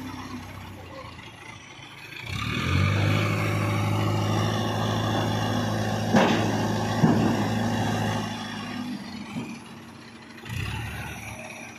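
Hydra mobile crane's diesel engine revving up about two seconds in and holding a steady high drone while it works the boom, with two sharp knocks in the middle, then dropping back toward idle.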